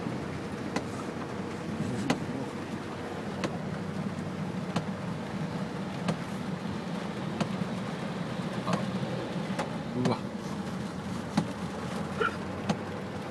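Inside a car driving through a flooded road in heavy rain: steady engine, tyre and rain noise with a low hum, and a regular tick roughly every second and a third.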